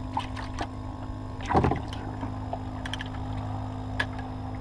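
Small battery-powered bait-bucket aerator pump humming steadily, with scattered light clicks and one louder knock about a second and a half in.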